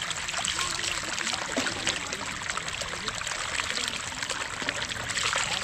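Water trickling and pouring steadily, full of small irregular splashes.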